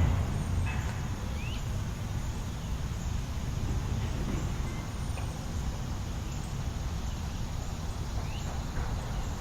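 City park ambience: a steady low rumble of distant traffic and wind, louder at first and easing off within the first second, with a few short rising bird chirps scattered through.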